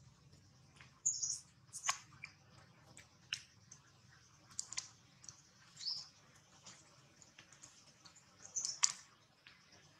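Short, high-pitched animal chirps and squeaks, about half a dozen scattered through, some dipping slightly in pitch, with faint soft clicks between them.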